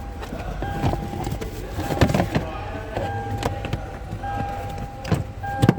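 Plastic clicks and knocks as a car's fuse box cover is handled and snapped back into place, the strongest about two seconds in and near the end. Behind them an electronic car chime repeats on and off.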